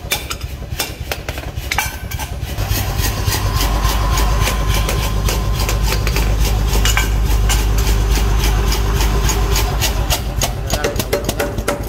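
Hand hammer striking a red-hot steel cleaver blade on an anvil in rapid, repeated blows. A steady low machine hum comes in about two and a half seconds in and runs under the hammering.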